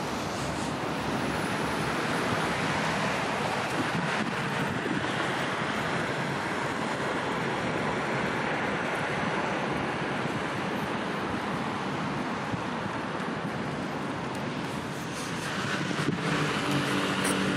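Steady outdoor rush of wind on the microphone and water, with distant engine and traffic noise beneath. Near the end a low engine hum with a few steady tones comes up over it.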